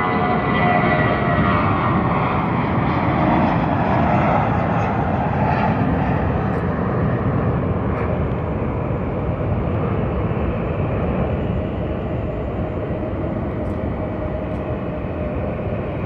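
Jet roar of an Airbus A320's two IAE V2527-A5 turbofans at takeoff thrust. Whining engine tones slide down in pitch over the first few seconds, and the roar then holds steady and slowly fades.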